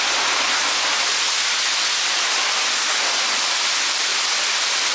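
Water gushing steadily from a wall spout and splashing onto the tiled floor of an empty bath as it starts to fill.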